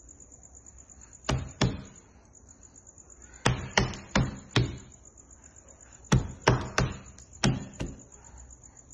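A baby's hands slapping and banging on a plastic high-chair tray: about ten sharp knocks in three quick bursts.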